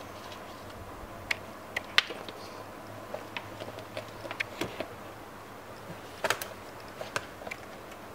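Paper and a gift-wrapped cardboard box being handled: scattered light taps, clicks and rustles, one at a time, over a faint low hum.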